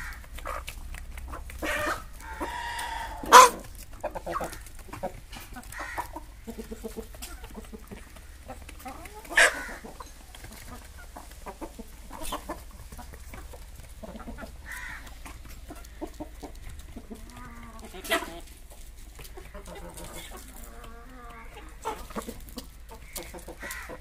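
A flock of chickens clucking while they peck at feed, with a longer drawn-out call about two seconds in. A few sharp knocks stand out, the loudest about three seconds in, with two smaller ones later.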